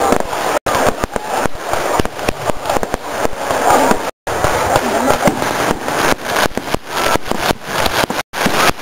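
Aerial fireworks bursting and crackling in a dense, continuous run of bangs and crackles, broken by three brief sudden gaps of silence.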